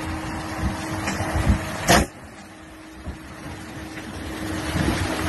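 Jeep Wrangler driving through a shallow creek, engine and water making a low rumble with irregular thumps, and a loud knock just before two seconds in. The sound then drops suddenly to a quieter low hum.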